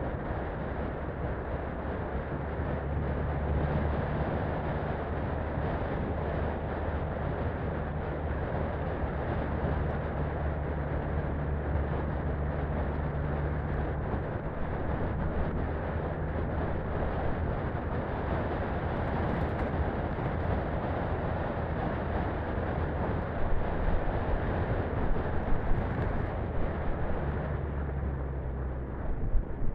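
Daihatsu Feroza 4x4's four-cylinder engine droning at a steady cruising speed, with tyre noise on a gravel road. A few knocks and rattles come in the last several seconds as the track gets rougher.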